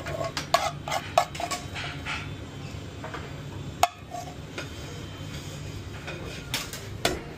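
Metal spoon scraping and clinking against a metal pan as food is spooned out onto a plate: a quick run of clinks in the first two seconds, a single sharp knock near four seconds and a couple more near seven, over a steady low background hum.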